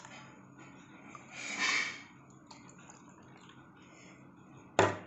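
Milk poured into a steel kadai of cooking semolina, with a brief hiss about a second and a half in. Near the end a steel spatula clacks sharply against the pan, the loudest sound.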